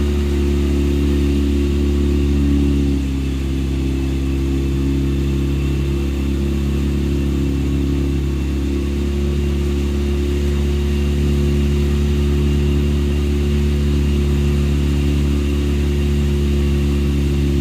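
Motorboat engine running steadily at an even pitch, dipping slightly in level about three seconds in.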